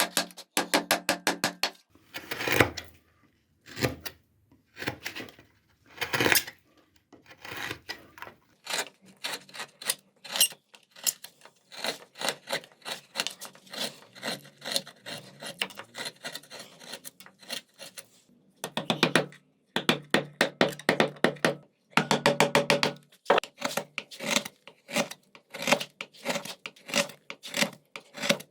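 A hand tool scraping walnut wood in runs of quick back-and-forth strokes, several a second, with short pauses between runs. There are a few slower, longer single strokes in the first seven seconds.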